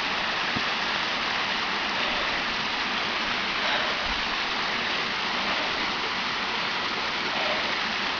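Waterfall splashing steadily, a constant full rush of falling water.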